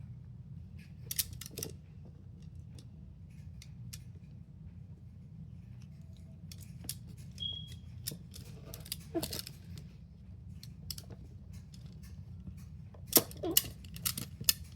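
Small fidget toys being handled and sorted: scattered sharp clicks and clatters, with the loudest cluster near the end, over a steady low hum.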